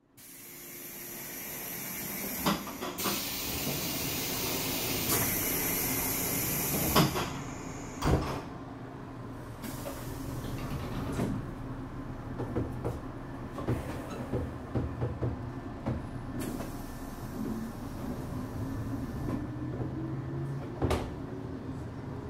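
Interior running sound of a JR 185 series electric train: a hiss and several sharp thuds in the first few seconds, then a steady low rumble with wheel clicks over the rail joints. Near the end the traction motors' whine rises in pitch as the train gathers speed.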